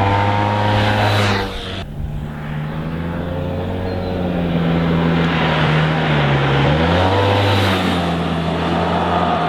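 Yamaha TMAX 530 SX maxi-scooter's 530 cc parallel-twin engine running through its stock exhaust. The note holds fairly steady, changes abruptly about two seconds in, dips briefly about six seconds in, then rises again.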